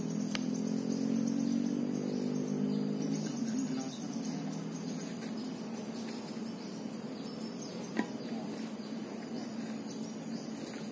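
Steady high-pitched insect drone from the riverside vegetation. A low steady hum stops about three seconds in, and a single sharp click comes about eight seconds in.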